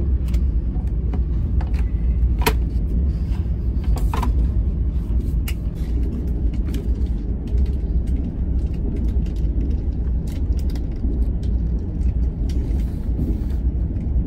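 Steady low rumble of a moving passenger train heard from inside the carriage, with a few sharp clicks, the clearest about two and a half and four seconds in.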